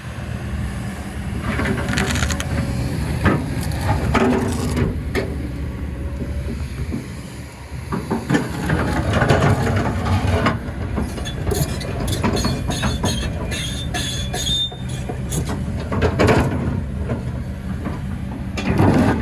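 Kobelco excavator working: its diesel engine runs under load, with repeated metal knocks and clanks and brief high squeals from the machine's steel parts.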